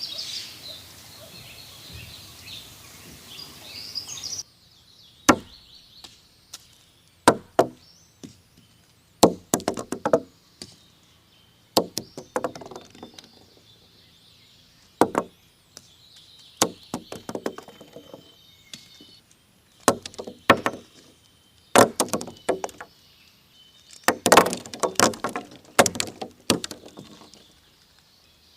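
Pine cones dropped onto a table, each landing with a sharp knock and a short clatter of bounces, coming singly and in quick clusters at irregular intervals. Before that, forest ambience with birdsong, which cuts off about four seconds in.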